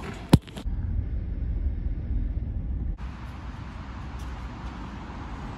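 A sharp click, then the low steady rumble of a car driving. About three seconds in it cuts suddenly to a quieter, even outdoor hiss.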